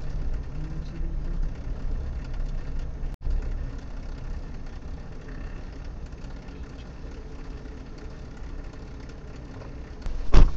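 Car engine running low and steady, heard from inside the cab as it creeps along at walking pace. A brief loud knock sounds near the end.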